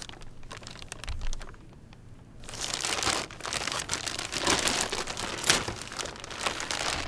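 Clear plastic shipping bag crinkling as it is slid and pulled off a computer. It goes briefly quieter about two seconds in, then turns louder and denser.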